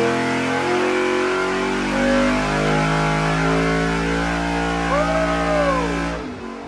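Carbureted 5.3-litre LS V8 running hard under load on an engine dyno, burning E85 through a single plane intake manifold. Its sound drops off sharply near the end.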